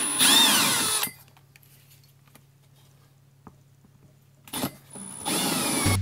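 Handheld drill with a 1 7/8-inch hole saw, spun up in short trigger bursts. A longer burst at the start and two shorter ones near the end, its whine rising and falling with each, with a quiet gap between.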